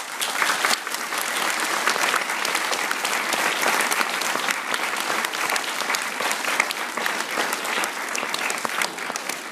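An audience of schoolchildren applauding: dense, steady clapping that breaks out all at once.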